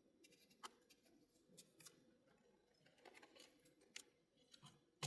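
Near silence, broken by a few faint, scattered clicks and taps.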